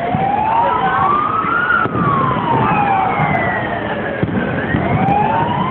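Emergency vehicle siren wailing, its pitch slowly rising and falling in a cycle of about five seconds, over a steady din of street and crowd noise.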